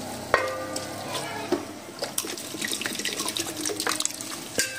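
Water poured in a thin stream into a stainless steel pot of shredded chicken frying in butter, while a spoon stirs and scrapes against the pot. A knock on the pot rings out near the start, and another comes near the end.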